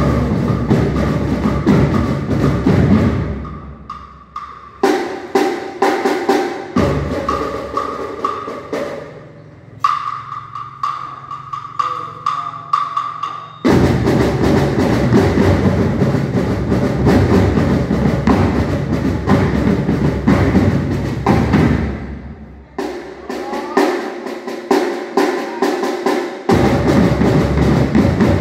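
A marching band drumline of marching bass drums and snare drums playing a march rhythm. Loud full-section passages alternate with thinner, quieter stretches of separate hits. The full section comes back in suddenly about halfway through and again near the end.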